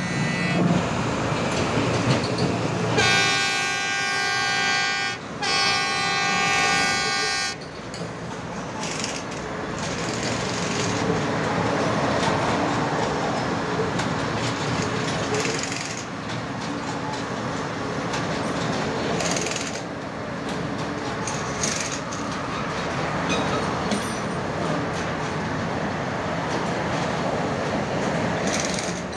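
Track laying machine running on the new rail line, its engine and mechanisms giving a steady mechanical noise with occasional knocks. A horn on the machine sounds two long blasts a few seconds in, the second after a short break.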